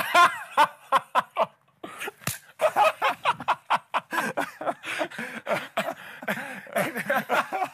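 Men laughing and exclaiming over each other, with a single sharp smack about two seconds in.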